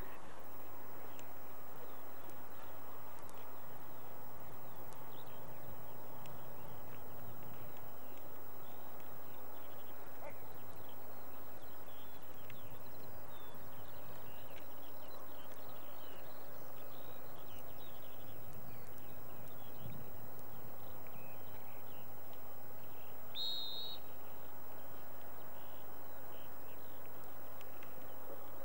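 Open-field ambience: a steady hiss-like background with scattered small bird chirps and a faint steady low hum. About 23 seconds in comes one short, high, wavering call.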